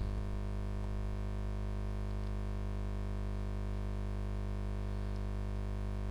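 Steady electrical mains hum from the recording chain, a low buzz with a ladder of even overtones that holds unchanged through the pause in the recitation.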